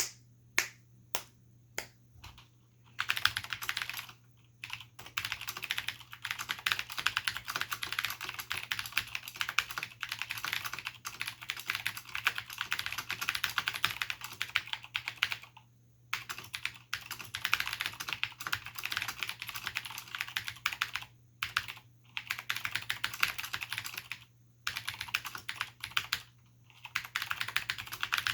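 Cherry G80-1813HFU keyboard with clicky Cherry MX Blue switches and doubleshot keycaps being typed on. A few single key presses come first, then about three seconds in fast continuous typing sets in, a rapid clatter of clicks broken by a few brief pauses.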